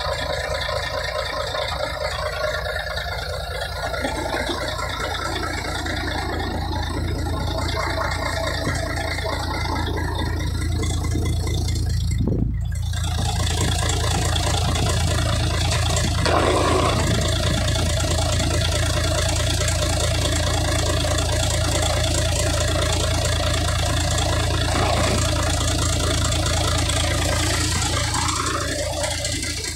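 Truck engine idling steadily, running so the air-brake system builds pressure through a freshly repaired air dryer. The sound cuts out for a moment about twelve seconds in.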